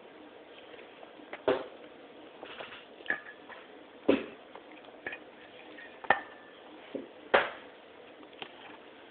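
Dishes clinking and knocking: several sharp knocks a second or two apart, a couple of them ringing briefly.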